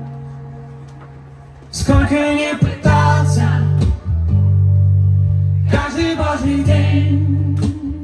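Acoustic guitar: a held chord rings and fades, then strummed chords come back in loudly about two seconds in and go on in a steady rhythm.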